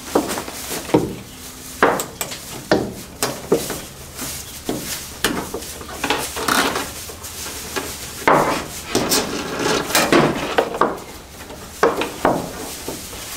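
Irregular knocks, taps and clatter of wood and hand tools being handled during carpentry work, a dozen or more separate sharp strikes with short gaps between them.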